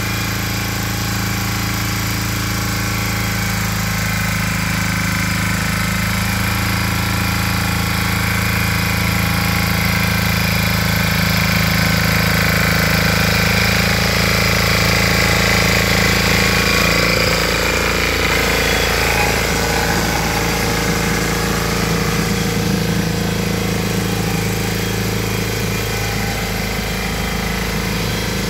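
Valpadana walk-behind tiller with an 8 hp, 359 cc Lombardini engine running steadily as it tills the garden soil. The engine note shifts slightly about two-thirds of the way through.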